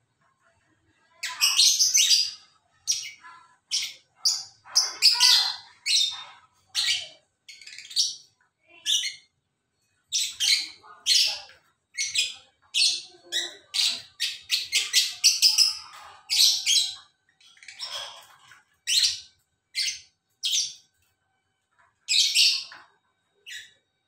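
Caged lovebirds chattering: runs of shrill, high chirps in short bursts with brief gaps between them.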